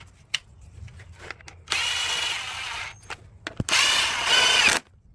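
Power drill driving screws in two runs of about a second each, its motor whine bending slightly as it loads up, with small clicks and knocks of handling around them.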